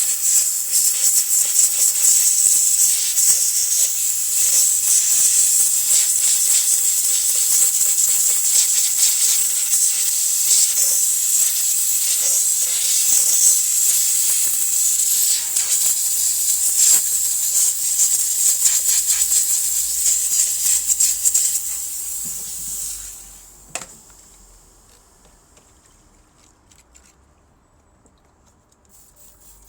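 A steady, loud hissing spray with crackling spatter, as the car's air-conditioning parts are washed. It fades out about 23 seconds in, followed by a single click.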